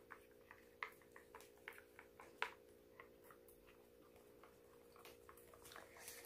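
Wooden chopsticks stirring melted sugar in a small metal ladle: faint, irregular ticks and clicks as the sticks knock against the ladle, the loudest about two and a half seconds in. A faint steady hum runs underneath.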